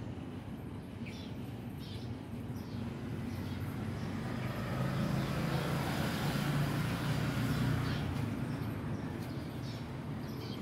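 A motor vehicle passing, its sound building over a few seconds and then fading, over a steady low hum. Birds chirp briefly near the start and again near the end.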